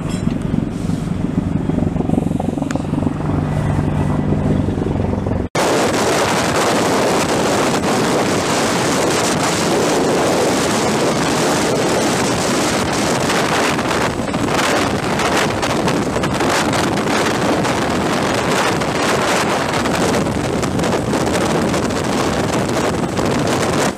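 CH-53E Super Stallion heavy-lift helicopter hovering low overhead: dense rotor noise with its downwash blasting across the microphone. Before a cut about five seconds in, a steadier low helicopter hum is heard.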